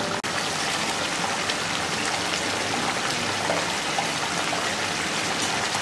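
Thick egg masala gravy bubbling and sizzling steadily as it simmers in a metal kadai, reducing and thickening on the stove.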